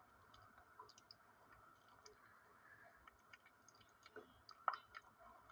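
Near silence with faint, scattered small clicks and wet mouth sounds of a capuchin monkey eating a soft, overripe banana, one click a little louder near the end.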